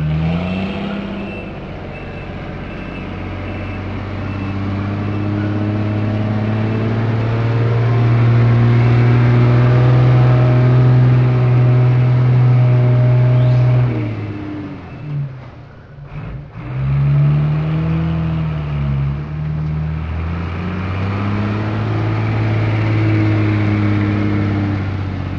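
Garbage truck's diesel engine revving up and held at high revs as it tips its body to dump a load of trash. The revs fall away a little past halfway, then pick up again.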